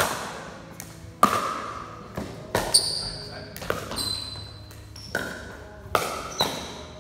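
Pickleball rally: a series of sharp hollow pops from paddles striking a plastic pickleball and the ball bouncing on concrete, about eight to nine hits at irregular spacing, each echoing in the large barn. Sneakers squeak briefly on the concrete floor a few times between hits.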